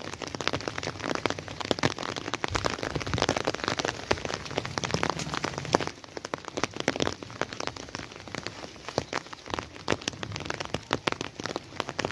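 Steady rain falling, a dense patter of drops; it is a little quieter from about six seconds in.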